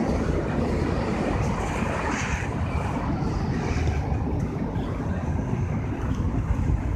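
City street traffic noise from cars on a wide avenue, with a low rumble of wind buffeting the microphone.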